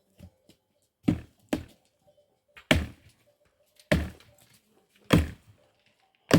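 Axe chopping firewood: six heavy, sharp strikes about a second or so apart, the first two in quick succession.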